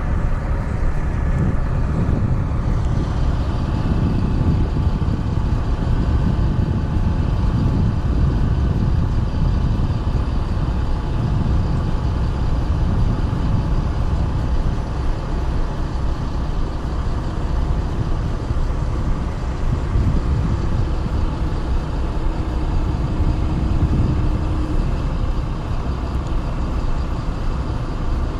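Heavy diesel truck engines running at idle: a steady low rumble with a faint steady whine over it.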